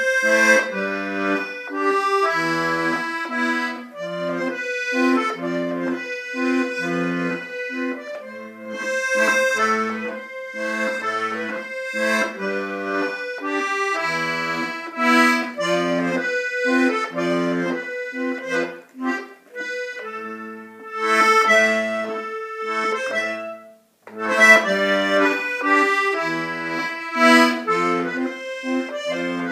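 Diatonic button accordion played solo: a melody on the treble buttons over a steady alternation of bass notes and chords from the left-hand buttons, with a momentary break late on.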